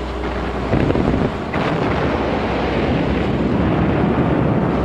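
Steady rush of wind and rough sea, with two brief sharper surges in the first two seconds.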